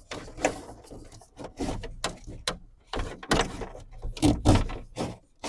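Repeated metal clunks, knocks and scraping from a car door being handled and pushed into place on its hinges.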